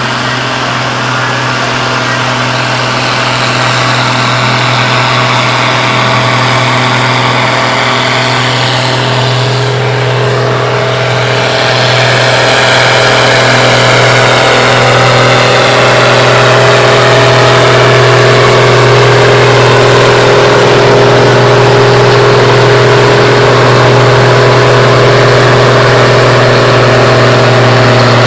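Tractor diesel engines working hard under a steady heavy load: the 1985 Case IH 1455 XL pulling a weight sled with a Deutz-Fahr 8280 TTV tractor hitched behind it. The engine note holds steady, and the sound gets louder from about twelve seconds in.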